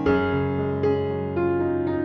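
Background music: a keyboard, electric piano-like, playing gentle notes and chords, with a new note struck about every half second.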